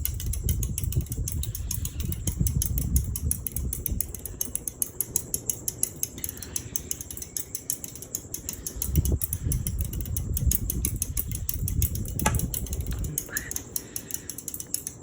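A 52-inch close-mount ceiling fan running on high speed with a rapid, even ticking. A low rumble comes and goes twice, and there is a sharp click about twelve seconds in.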